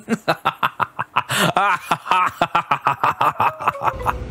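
A person laughing hard in a fast run of short bursts, several a second, which stops near the end and gives way to a low steady hum.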